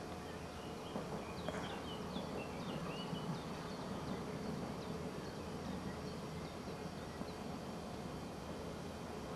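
Small birds chirping in short, quick calls, clustered from about one to three and a half seconds in, over faint steady outdoor ambience.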